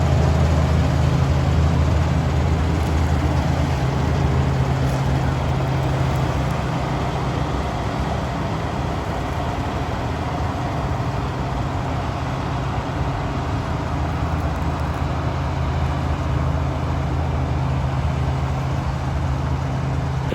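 Claas Dominator 98SL Maxi combine harvester running steadily during wheat harvesting, a deep engine hum over the machine's threshing noise. The low hum eases a little after about eight seconds.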